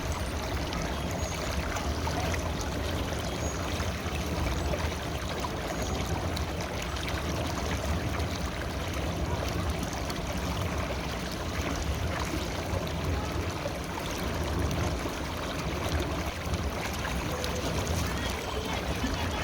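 River water flowing over rocks, a steady rushing and babbling that stays even throughout.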